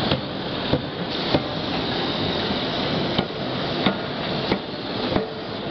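A 31.5 kJ C92K CNC die forging hammer striking connecting-rod forgings: sharp blows about every two-thirds of a second, three in a row, then after a pause of about two seconds four more, over a steady loud forge-shop din.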